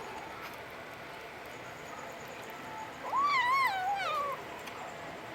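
Domestic short-hair kitten meowing once, about three seconds in: one drawn-out call that rises, wavers and falls away.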